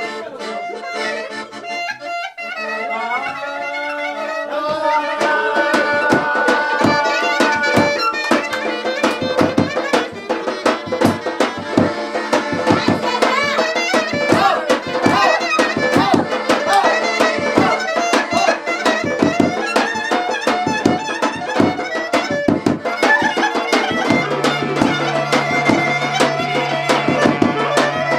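Instrumental folk dance music with an accordion-like lead playing an ornamented melody; a fast, even drum beat comes in about four seconds in, and a steady low held note joins near the end.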